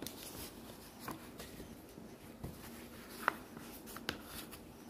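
Pages of an old paper book being handled and turned: faint rustling with a few light clicks and taps, the sharpest about three seconds in.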